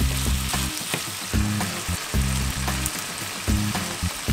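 Chicken pieces frying in avocado oil in a nonstick skillet: a steady sizzle, with short clicks and scrapes of a wooden spatula stirring against the pan. Near the end, sliced bell peppers are tipped into the pan.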